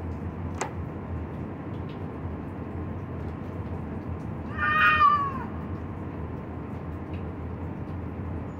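A cat meowing once, a single call of just under a second about halfway through that drops in pitch at its end, over a steady background hum. There is a sharp click shortly after the start.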